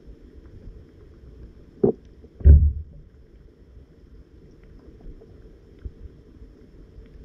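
Muffled underwater noise heard through a submerged camera, with two dull knocks about two seconds in, the second louder and deeper.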